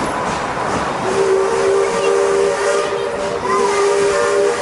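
Steam locomotive's whistle sounding one long, steady chord of several notes, starting about a second in, over the hiss of escaping steam.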